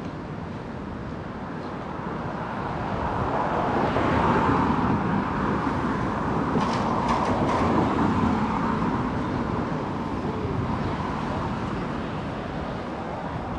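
City street traffic with a motor vehicle passing close by: a rush of engine and tyre noise that swells, peaks in the middle, then slowly fades.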